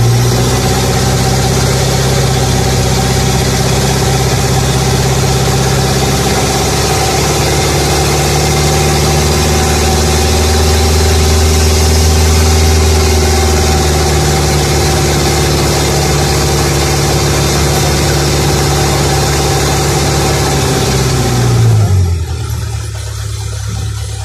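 Ferry boat's engine running steadily under way, with a loud rushing hiss. About 21 seconds in the engine is throttled back, its pitch sliding down, and it settles to a lower, quieter idle as the rushing stops.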